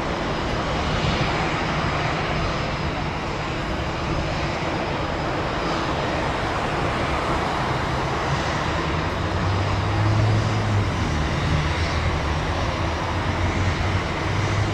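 Jet airliner's engines on approach, a steady rush and rumble with a deeper hum that grows a little stronger about ten seconds in.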